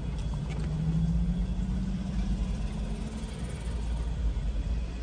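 Car engine idling, heard from inside the cabin as a steady low rumble. A faint low hum rises slightly and fades out about three seconds in.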